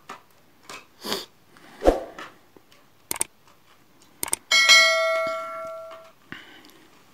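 Sharp plastic clicks as a flathead screwdriver pries at the snap locks of a laptop battery's plastic case. About four and a half seconds in come a quick double click and a bright bell chime from a subscribe-button sound effect, ringing for about a second and a half before it fades.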